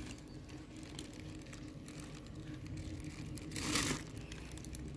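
Crinkled foil sheet over an opened stingless-bee hive rustling faintly as it is handled, with one louder crinkle about three and a half seconds in.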